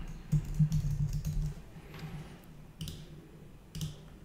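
Computer keyboard typing, a quick run of keystrokes for about a second and a half, then two single sharp clicks, most likely mouse clicks.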